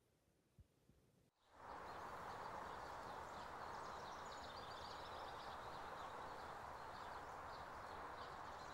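Woodland ambience: a steady rushing background with small birds chirping high over it, starting about a second and a half in after near silence.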